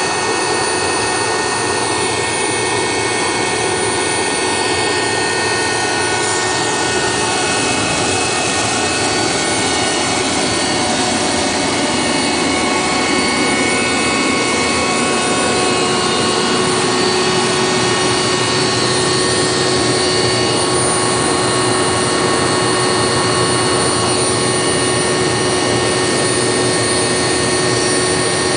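Solar Saturn 750 kW liquid-fuelled gas turbine generator set running on a load bank: a loud, steady jet-like rush with several high, steady whining tones over it.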